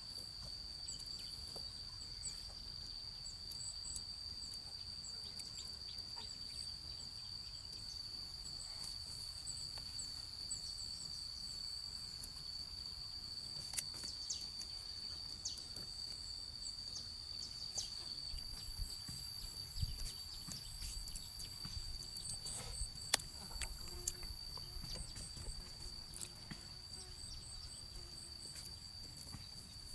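Crickets: one continuous high-pitched trill, with fainter higher chirping over it and a few scattered clicks and knocks.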